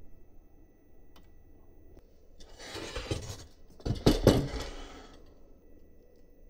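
Hand-work sounds of small parts being handled during a 3D printer assembly: two bursts of rustling and clattering, the second one louder.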